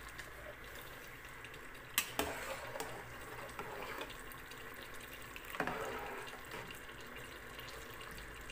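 Pot of rice boiling, a steady bubbling of starchy water, with two sharp knocks: one about two seconds in and another a little past the middle.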